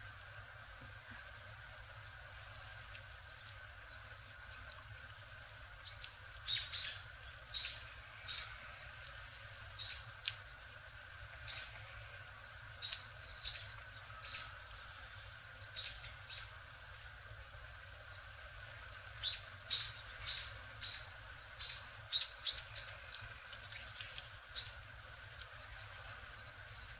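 Small songbirds calling with short, sharp chirps, singly and in quick clusters, mostly from about six seconds in. A small bird splashes lightly as it bathes in a shallow stone birdbath.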